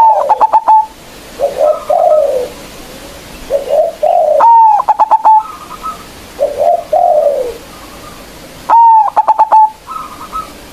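Zebra dove (perkutut) singing: three loud song phrases about four seconds apart, each a falling note followed by a quick stuttering run of short coos, with softer, lower coos between them.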